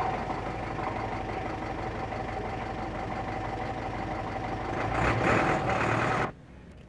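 An engine running steadily with a faint steady hum; it grows louder about five seconds in and cuts off abruptly a little after six seconds.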